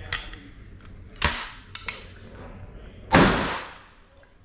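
Single-shot 12-gauge break-action shotgun firing a .410 shell through an adapter insert. A sharp knock about a second in and two small clicks fit the action being closed and readied, then one shot about three seconds in rings on for nearly a second.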